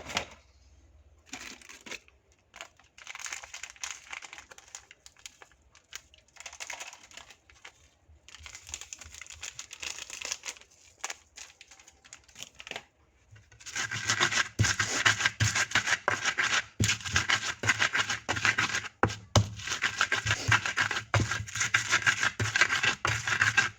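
Spice paste of chili, candlenut and garlic with salt and sugar being ground by hand with a pestle in a mortar (Indonesian cobek and ulekan): scraping, crunching strokes. The strokes come in short spells with pauses for the first half, then turn into steady, continuous grinding from about halfway.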